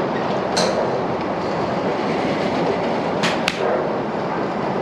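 Golf clubs striking balls at a driving range: one sharp crack about half a second in and two more close together a little past three seconds, over a steady rushing background noise.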